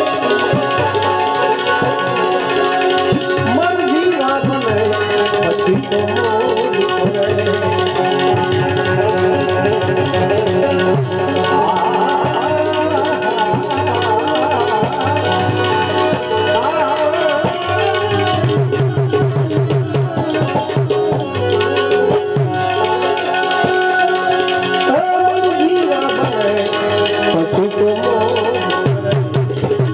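Live Gujarati devotional santvani music: tabla drumming under sustained tones and a wavering melody line, with kartal (paired wooden clappers) clacked in the hands in time with the beat.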